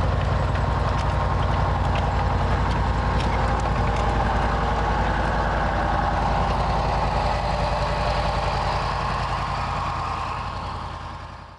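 Restored StuG III assault gun's engine running steadily with an even low pulse, fading out near the end.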